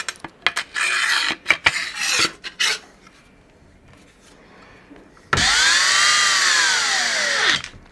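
Clicks and scraping as parts are handled, then a cordless drill-driver runs a screw into a gantry plate for about two seconds. Its motor pitch rises and then falls away.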